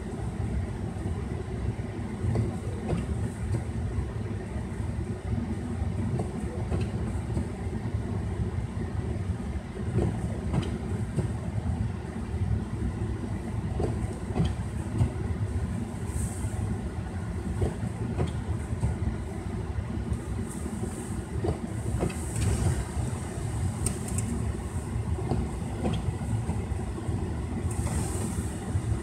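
Steady low rumble of a car's cabin, with light ticks and clicks scattered through it and a few brief hisses.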